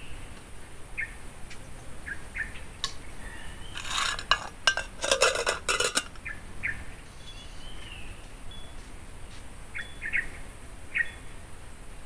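Aluminium pot lid clattering and clinking against the metal pot for about two seconds in the middle, the loudest sound, with short bird chirps scattered before and after.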